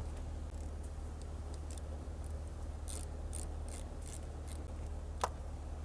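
Faint clicking of a socket ratchet tightening the positive battery terminal clamp, about three clicks a second, with one sharper click a little after five seconds in.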